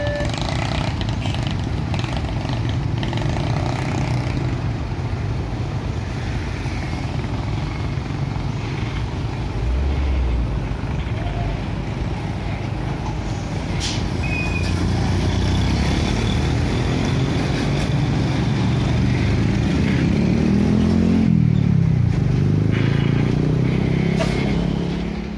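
Road traffic crossing a railway level crossing: motorcycle and car engines passing continuously. Near the end a heavy diesel dump truck's engine rises and falls in pitch as it pulls across.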